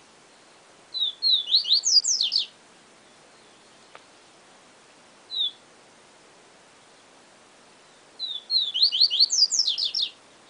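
Papa-capim seedeater (Sporophila) singing the 'siu siu professor' song: two quick phrases of high, falling whistled notes several seconds apart, with a single note between them, over a steady hiss.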